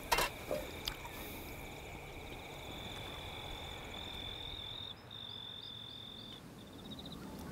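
Insects trilling steadily at two high pitches, the lower one dropping out about halfway and the higher one going on in short pulses, with a few sharp clicks near the start.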